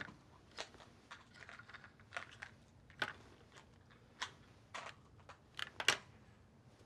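Faint, irregular small clicks and crackles over quiet room tone, with the two loudest close together near the end.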